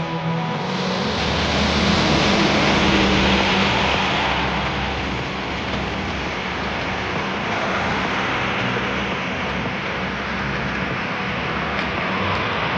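Steady road noise of a car driving on a wet expressway in rain: the hiss of tyres on the wet road and rain on the car, swelling about a second in and easing back to a steady level after a few seconds.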